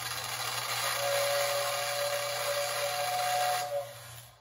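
Lionel 2689W whistle tender blowing its classic rattling whistle: a breathy, airy tone with two pitches sounding together, over a steady low hum. The whistle lasts about three seconds and stops near the end.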